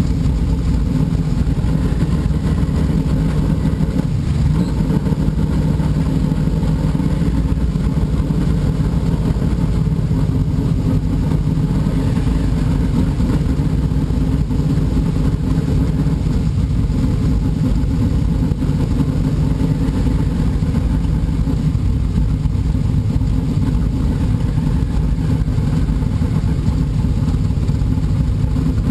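Dirt modified race car's V8 engine running steadily at low revs, heard from inside the open cockpit.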